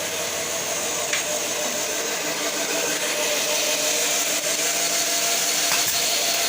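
Electric woodworking power tool running steadily, with a couple of faint clicks.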